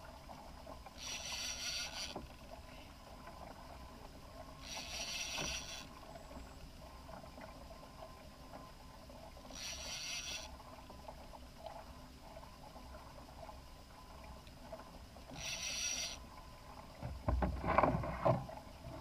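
Conventional fishing reel whirring in four short bursts of about a second each, several seconds apart, as a hooked fish is fought on a bent rod. A cluster of loud knocks and thumps comes near the end.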